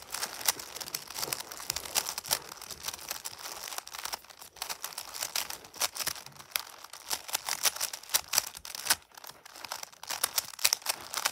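Stickerless plastic 3x3 speed cube being scrambled by hand: rapid, irregular clicks and clacks as its layers are turned quickly.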